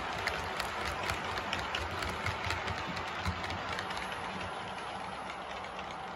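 OO gauge model coaches' metal wheels clattering over rail joints and pointwork, a rapid patter of clicks that thins out about four seconds in as the last coach runs past.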